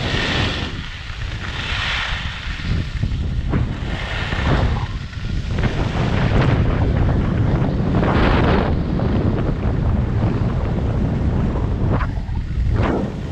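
Wind buffeting a GoPro microphone at downhill skiing speed, a steady low rumble, with skis hissing and scraping on freshly groomed snow in repeated bursts as the skier turns.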